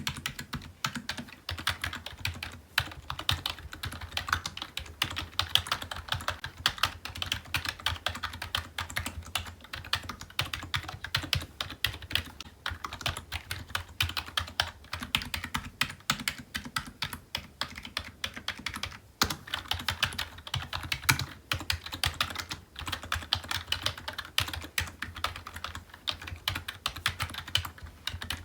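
Steady, fast typing on a computer keyboard: a dense run of key clicks and keystrokes with a few brief pauses.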